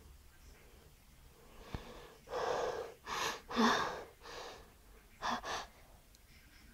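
A woman's quick, catching gasps, about five in a row: the in-breaths of a sneezing fit building up to the next sneeze.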